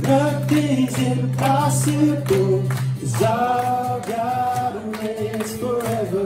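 Church worship singing: several voices holding long sung notes in a slow praise song over a steady low sustained tone.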